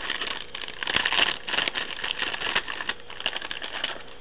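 Plastic packaging crinkling and crackling as it is handled, in irregular bursts that stop shortly before the end.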